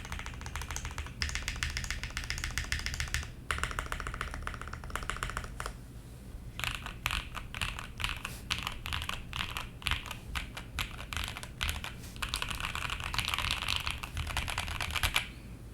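Rapid runs of light clicks in stretches of a few seconds, broken by brief pauses, over a steady low hum.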